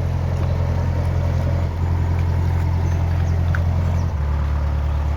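Narrowboat engine running with a steady low hum; about four seconds in its pitch suddenly drops as the engine slows.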